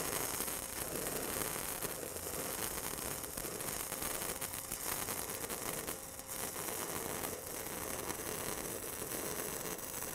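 Stick-welding arc of a 1/8-inch 6010 electrode at 75 to 80 amps, a steady hissing crackle. The rod is held too far from the bevel and flared out, a long arc that throws spatter and eats away the keyhole.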